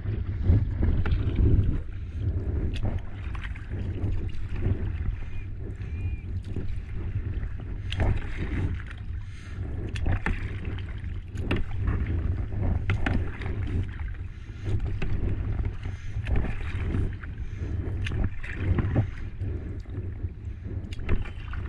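Kayak being paddled with a double-bladed paddle: the blades dip and pull through calm water, a splashing stroke every second or so, alternating sides. Over it runs a steady low rumble of wind on the microphone.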